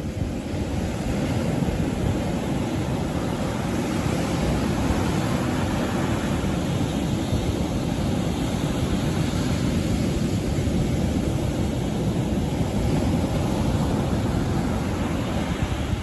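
Sea surf breaking and washing onto the beach, with wind buffeting the microphone: a steady rushing noise with a heavy low rumble.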